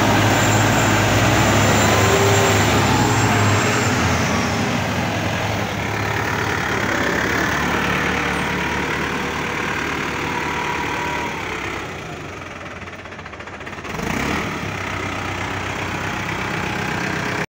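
Farm tractor's diesel engine running close by under load as it tows a stuck dump truck on a chain. The engine is loudest for the first few seconds, drops back, dips lower around twelve seconds in and picks up again about two seconds later.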